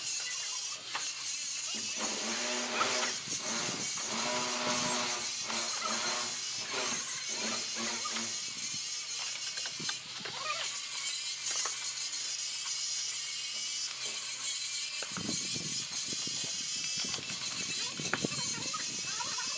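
Mortar being scraped and pressed onto clay roof tiles, a run of rasping scrapes and light clicks as it is worked along the tile edge, over a steady high hiss.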